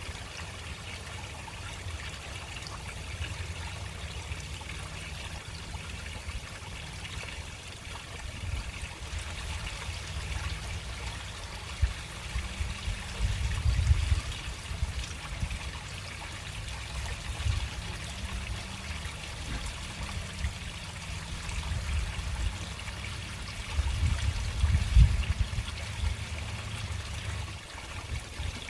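Water running slowly through a storm drain: a steady trickling and splashing flow. A low rumble swells twice, about halfway through and near the end.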